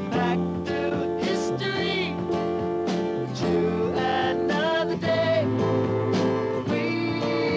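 A band song with guitar and a singing voice, playing steadily without a break.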